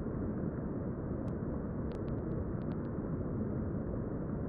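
Steady rushing of river current, with a few faint clicks about two seconds in.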